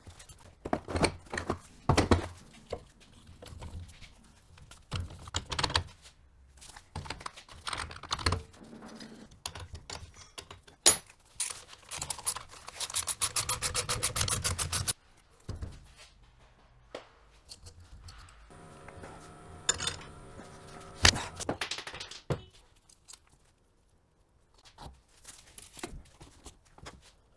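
Metal tools and strut parts being handled during a shock absorber strip-down: scattered clanks and knocks, a run of rapid even clicking about halfway through, and a short hum about two-thirds of the way in.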